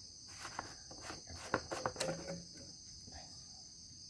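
Black plastic fuel tank cap on a Maruyama AD26 brush cutter being unscrewed by hand, giving a few short, light clicks and scrapes in the first half. A steady, high-pitched background hiss runs underneath.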